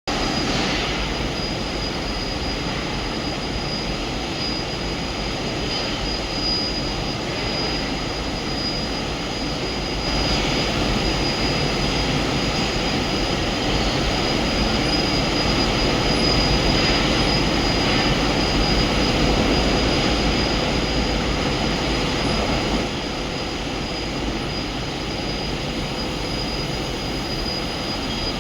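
Outdoor cascading fountain waterfall running, a steady rush of falling water with a thin steady high tone over it, a little louder for a stretch in the middle.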